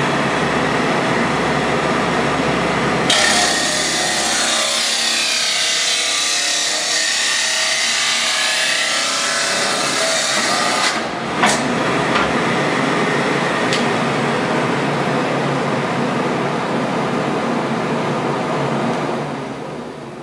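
Everett 10 hp abrasive chop saw running and grinding its wheel through a clamped metal part. A harsh, bright hiss of the cut starts about three seconds in and lasts to about eleven seconds, and the saw cuts with ease. Afterwards the wheel runs on steadily until the sound dies away near the end.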